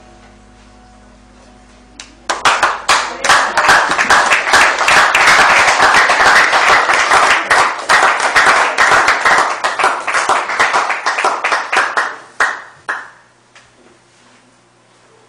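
An audience applauding: dense hand-clapping starts about two seconds in, holds for about ten seconds, and dies away.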